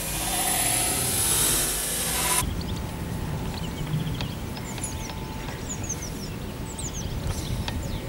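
Outdoor wind noise on the microphone: a loud hiss that cuts off abruptly about two and a half seconds in. After that a low wind rumble remains, with small birds chirping and singing.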